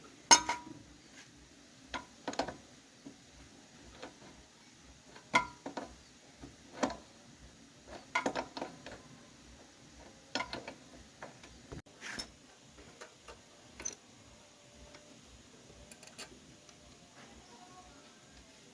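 Metal tools and parts clinking and knocking at irregular intervals, about a dozen sharp strikes with the loudest about half a second in. A faint, steady, even ticking runs underneath.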